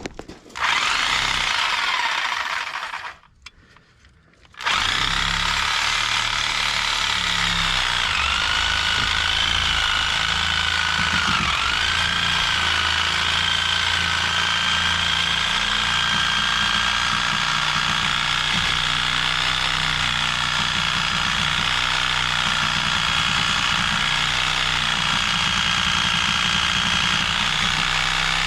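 Handheld power tool working on the old shock absorber's mounting bolt: a burst of about two seconds, a short pause, then a long continuous run with a whine that dips twice as it bogs under load.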